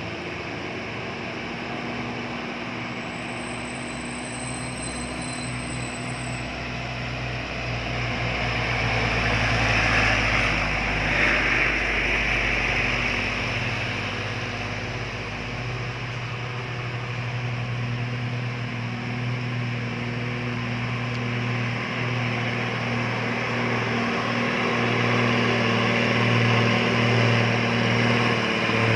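Heavy truck engine running at a steady low speed with a constant low hum, growing louder from about eight to thirteen seconds in and again near the end.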